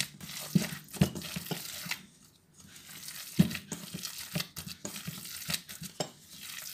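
Gloved hands squishing and kneading a raw ground-meat and grated-potato meatball mixture in a stainless steel bowl, with irregular crinkles and small clicks from the plastic gloves and the bowl. The sound stops briefly about two seconds in.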